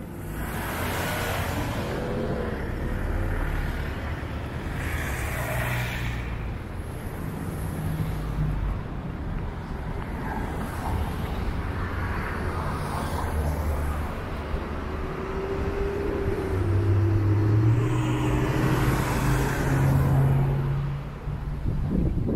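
Street traffic: motor vehicles passing one after another over a steady low engine rumble, with louder passes near the start, about five seconds in and near the end.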